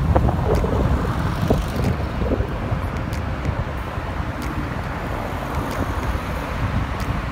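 Wind buffeting the microphone and steady road and traffic rumble, recorded while riding on the back of a moving two-wheeler.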